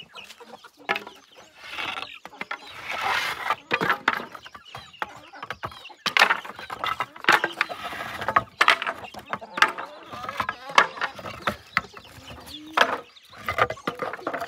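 Loose wooden boards scraping and knocking against each other as they are pulled one by one from a hut's doorway and dropped on the ground, a string of sharp wooden clacks. Chickens cluck now and then in the background.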